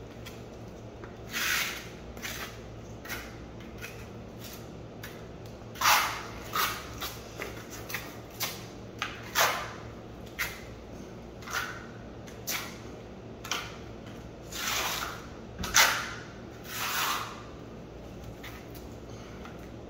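Steel trowel scraping and spreading wet cement patch compound over a concrete subfloor: about twenty short scraping strokes at an irregular pace, with a few longer swipes near the end.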